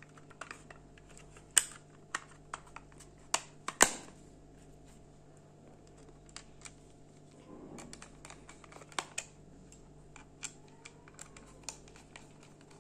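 Sharp plastic clicks and taps from a yellow plastic digital multimeter case being closed up and its back screwed shut with a small screwdriver, the loudest two snaps coming in the first four seconds, over a faint steady hum.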